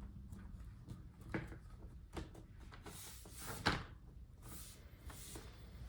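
Hands fitting a replacement laptop LCD panel into the lid: scattered light plastic clicks and taps with short rustles. The sharpest knock comes just under four seconds in.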